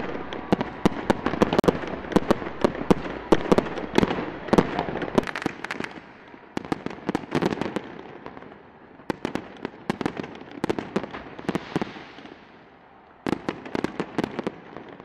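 Aerial fireworks display going off: rapid sharp bangs and cracks over a constant crackle. The bangs are densest in the first several seconds, thin out, and a sudden new volley starts near the end.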